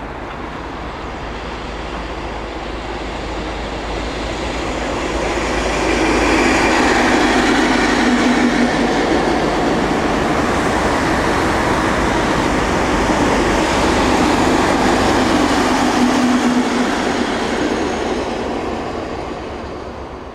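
A Class 43 HST diesel test train, the yellow New Measurement Train, passing at speed. Engine and wheel noise swell about six seconds in, hold steady while the train goes by, then fade near the end.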